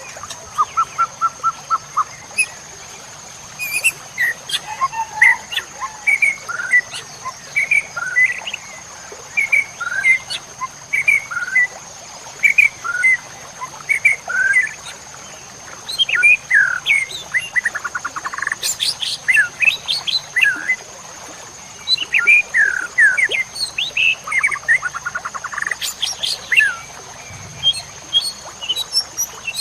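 White-rumped shama (murai batu) singing a long, varied song of quick whistled notes and slurs, broken by several rapid trills, over a steady faint high-pitched tone.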